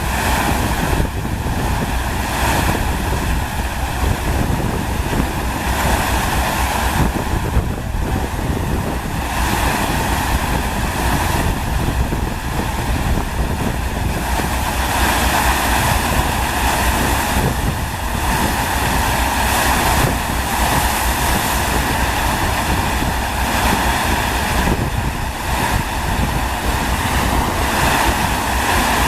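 A FlowRider wave simulator's sheet of pumped water rushing steadily over the ride surface, with wind rumbling on the microphone.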